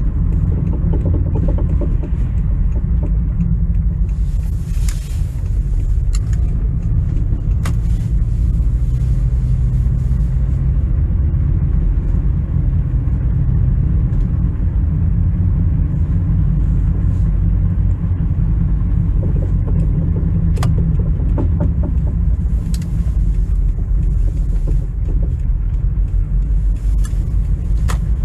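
A 2006 Toyota Camry on the move gives a steady low rumble, with a few sharp clicks or knocks standing out. The car has a passenger-side knocking and vibration when coasting or braking, which a friend suspects is the right CV axle.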